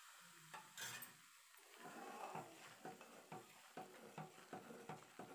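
Faint stirring of a thick, frothing gram-flour, sugar-syrup and ghee mixture (Mysore pak) with a steel spoon in a steel pan on the stove, with a low sizzle. The spoon strokes start about two seconds in and come in an even run, nearly three a second.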